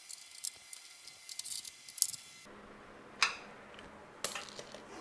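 Socket ratchet and metal tool sounds as the mounting bolts of a winch hawse fairlead are run in: a quick run of light clicks, then two sharper metal knocks in the second half.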